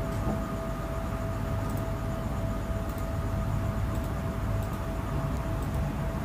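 Singing bowl holding one steady ringing tone with a fainter higher overtone, over a low steady rumble.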